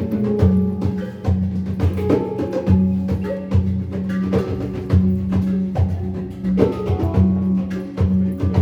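Hang and pimak improvising together: quick, steady runs of struck, ringing notes over a held low note.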